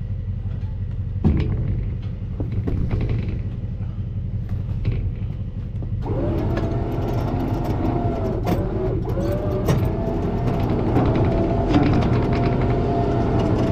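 A low steady rumble, then an electric winch motor starting about six seconds in and whining steadily as it pulls a car forward onto a trailer deck.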